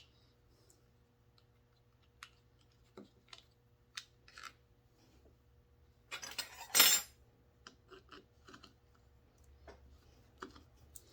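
Small metal parts and hand tools clicking and clinking while a chainsaw recoil starter is put back together by hand, with a louder clatter about six to seven seconds in.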